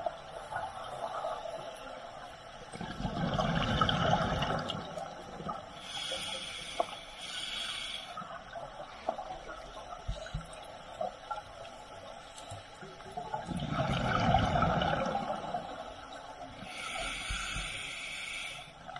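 Scuba diver breathing through a regulator underwater: two slow breaths, each a low bubbling rumble of exhaled air followed a second or two later by a hiss of inhalation. Faint scattered clicks underneath.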